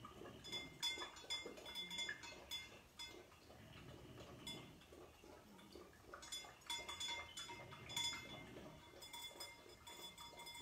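A metal tag jingling on a dog's collar: clusters of light metallic clinks, one spell in the first few seconds and another from about six seconds in.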